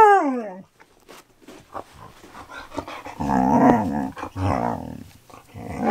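Siberian husky "talking": a drawn-out, wavering vocal call that trails off in the first half-second. About three seconds in comes a low, rough grumbling growl lasting about two seconds, and another husky call begins near the end.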